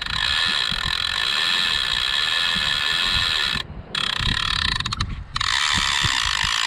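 Clicker ratchet of a large conventional saltwater reel buzzing as line is pulled off: a run, with something taking the bait. The clicking stops briefly twice a little past halfway, and low wind rumble sits on the microphone.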